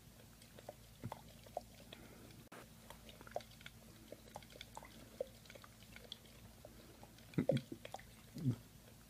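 A husky-type dog gnawing at the rim of a drinking glass: faint, scattered clicks of teeth against the glass, with a couple of louder, lower chewing sounds near the end.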